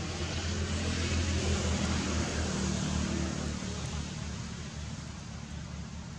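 A passing motor engine: a low engine hum under a broad hiss, swelling over the first couple of seconds and then slowly fading.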